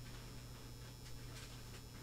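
Quiet room tone with a faint steady electrical hum.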